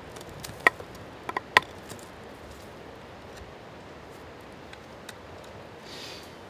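A few sharp clicks, about four in the first two seconds, as the parts of a handmade bow-fishing arrow (shaft, line and detachable point) are handled and fitted together, over a steady outdoor hiss.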